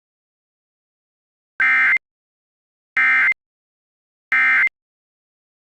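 Emergency Alert System end-of-message signal: three short, identical bursts of buzzing digital data tone, about a second and a half apart, marking the end of the alert.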